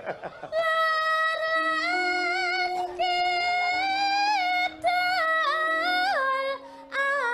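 A woman singing high sustained phrases in Javanese sindhen style through a microphone, with slides and turns in pitch and short breaths between phrases, over a steady lower accompanying note.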